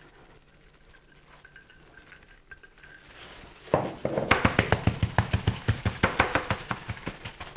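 Gloved hands patting and rubbing dry rub into a rack of bison ribs on a plastic tray. The slaps are quick and regular, about four or five a second, and start about four seconds in after a quiet stretch.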